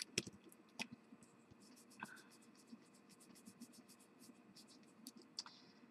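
Faint scratchy strokes of a Faber-Castell Gelato water-soluble pigment stick being scribbled back and forth on smooth cardstock, with a few light clicks.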